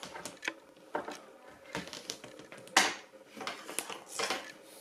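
Irregular clicks and taps from a flexible LED tailgate light strip being handled and straightened out on a surface. The loudest knock comes about three seconds in.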